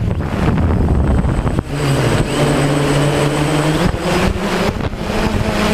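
DJI Phantom quadcopter's motors and propellers humming under heavy wind buffeting on the microphone; a steady pitched drone with overtones stands out for about two seconds near the middle.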